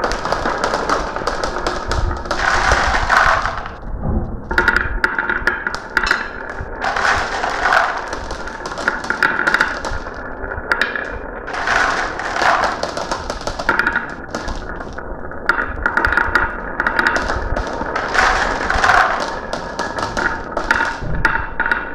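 Marbles rolling and clattering down a marble run: a dense stream of irregular clicks and taps over a ringing rattle, with louder clusters of impacts every few seconds.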